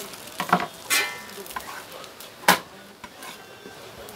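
Kitchen knife and metal spatula knocking and clattering on a wooden cutting board as a green-onion pancake is cut and its pieces lifted off. A few sharp knocks, one with a brief metallic ring about a second in, and the loudest knock about two and a half seconds in.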